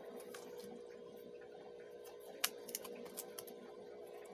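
Paperboard puzzle pieces being handled and pressed out of their sheet: scattered light clicks and snaps, the sharpest about two and a half seconds in, over a steady background hum.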